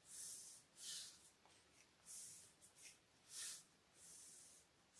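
Faint scratching of a pen drawing straight lines on paper: about five separate strokes, each under half a second long.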